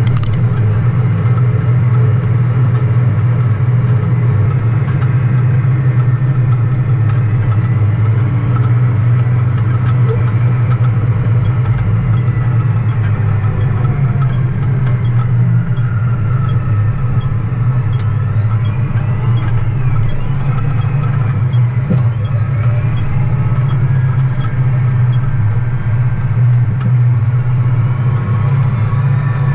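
Vehicle engine running steadily under way, a constant low drone.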